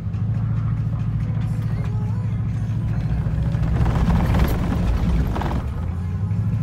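Car interior while driving on a gravel road: a steady low rumble of tyres and engine, with a louder rattling, crunching stretch from about four to five and a half seconds in as the tyres work over the gravel.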